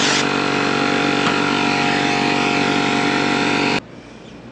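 An engine running at a steady speed, which cuts off abruptly near the end. A short hiss of aerosol brake cleaner being sprayed comes right at the start.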